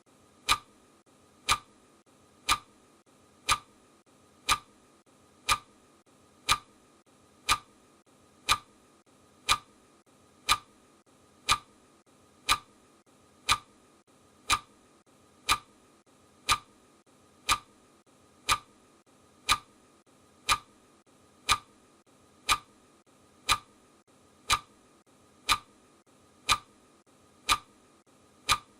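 Clock-style ticking sound effect, one sharp tick every second, marking each second of a countdown timer.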